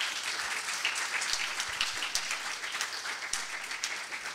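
Audience applauding: dense, steady clapping from many hands that begins to thin out near the end.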